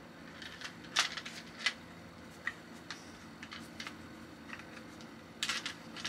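Magnetic shape-shifting fidget cube being turned and refolded in the hands: its segments give irregular light clicks and taps as they snap together and come apart, loudest about a second in and in a quick cluster near the end.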